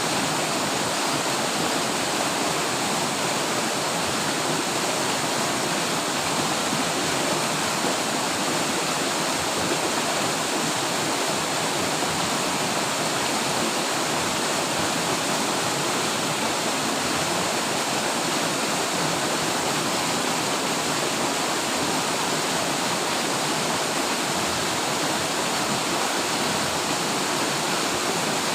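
Steady, even rush of a mountain river's flowing water.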